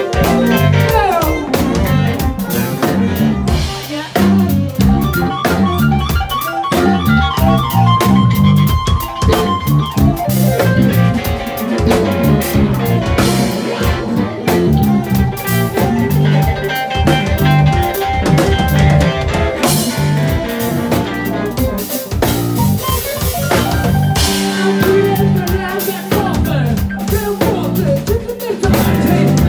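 Live band playing an instrumental passage: a drum kit keeps a steady beat under guitar and sustained keyboard-like notes.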